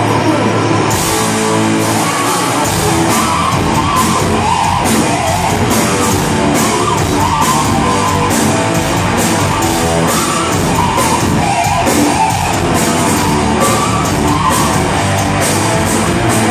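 Heavy metal band playing live and loud: distorted electric guitars, bass and drums, with cymbal strokes coming in about a second in, heard from within the crowd.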